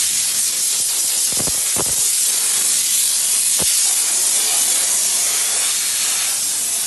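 Steam jet from an Airtek steam wash machine's spray gun, a loud steady hiss, with a few faint knocks in the first few seconds.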